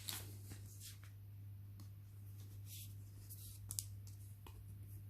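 Faint handling of trading cards and their packaging: a few light clicks and rustles, the sharpest a little under four seconds in, over a steady low hum.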